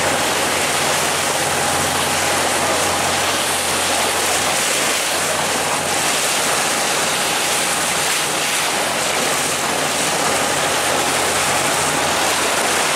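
Small motor tour boat under way through choppy sea: a loud, steady rush of water along the hull, with the low hum of the engine underneath.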